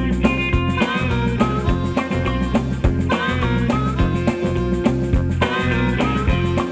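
Background music: guitar over a steady beat and bass.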